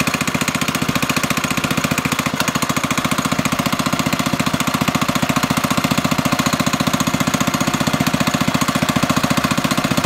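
The 97cc Doodle Bug mini bike's small single-cylinder four-stroke engine idling steadily, with a rapid, even putter.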